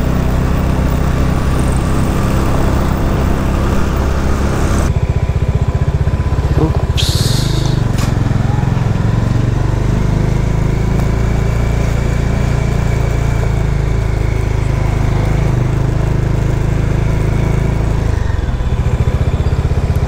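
Bajaj Dominar 400's single-cylinder engine running steadily on the move, its note shifting about seven seconds in.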